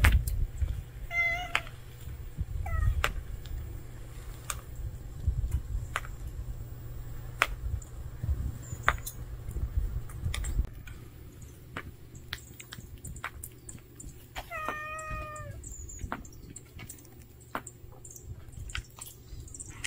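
A cat meows: two short meows in the first three seconds, then one longer, level meow about fifteen seconds in. A low rumble runs under the first half, and small clicks are scattered throughout.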